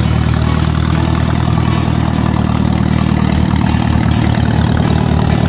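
Old farm tractor's engine running steadily as it drives along, with a low, even note. Past the middle the note turns into a regular low pulsing.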